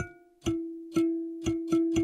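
Servo-driven kalimba playing a slow melody: metal tines flicked by servo-moved plastic pickers, each pluck starting with a sharp click and ringing until the next, about two notes a second.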